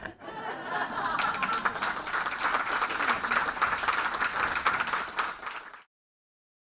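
Audience applauding, many people clapping at once in a dense patter that builds over the first second, then cuts off suddenly near the end.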